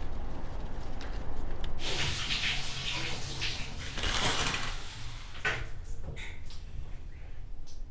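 Shower curtain being drawn along its rail, the rings scraping, followed by a short sharp click.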